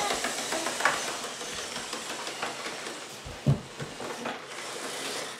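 HO scale model train running on its layout: a steady hiss with a few light clicks and one low thump about three and a half seconds in.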